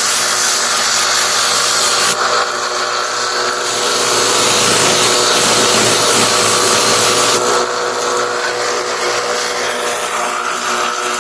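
Electric grinder running, with the steel blade of a Romanian AK-47 bayonet pressed against it to sharpen the edge: a steady motor hum under a loud grinding hiss. The hiss changes in strength about two seconds in and again about seven and a half seconds in, as the blade is worked against the grinder.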